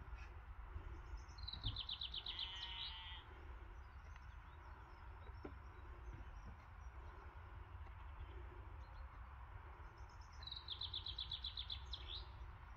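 A songbird singing two short phrases, about nine seconds apart. Each is a quick run of repeated notes that drops in pitch, heard over a steady low background rumble.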